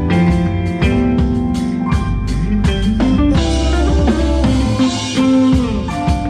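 A live band playing a groove on drum kit, guitar and bass, with steady drum hits and gliding bass notes; cymbals ring out from about halfway in.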